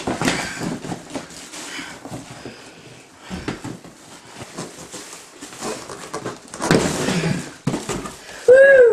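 Cardboard box and plastic wrapping rustling and scraping as a vacuum cleaner is pulled out of its packing box, louder for a moment about seven seconds in. Near the end comes one short vocal sound.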